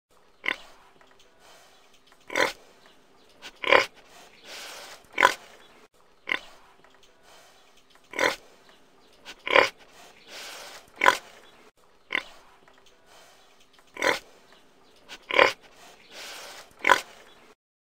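Domestic pig grunting: short, sharp grunts one to two seconds apart, the same run of four grunts coming round three times.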